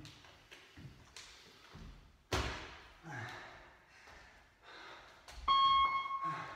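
A single thud that rings on in the hall about two seconds in. Near the end comes a steady, evenly pitched beep lasting about a second, the loudest sound here.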